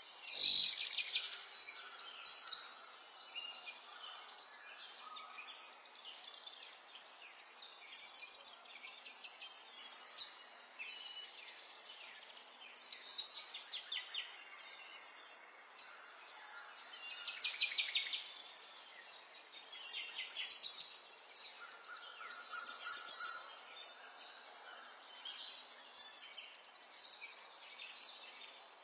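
Songbirds singing in high, rapid trilled phrases that come every two to three seconds, over a faint steady hiss. Just after the start there is a sharp falling note.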